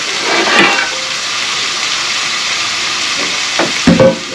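Meat frying in a hot sauté pan, a steady sizzle. A couple of knocks near the end.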